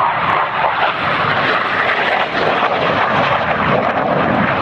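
Steady jet noise from a BAE Hawk T1 display jet's Adour turbofan engine as it flies past, holding level with no break.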